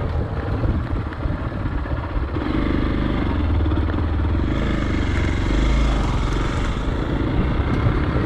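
Off-road motorcycle engine running at low speed as the bike is ridden slowly and turned around on a dirt track, picking up a little about two and a half seconds in.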